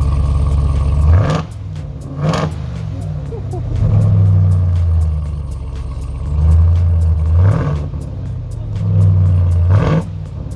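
Big pickup truck V8 engine being revved repeatedly: several quick blips sweep up in pitch, with deep running at steadier revs between them.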